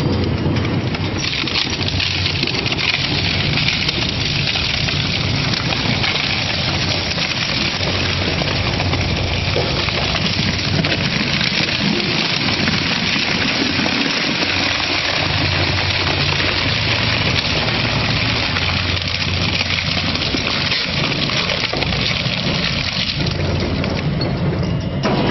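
Twin-shaft shredder's hooked cutter discs tearing and crunching a large black flexible item: a loud, steady grinding rasp over the low hum of the machine. Near the end the material is gone and the rasp thins as the cutters turn empty.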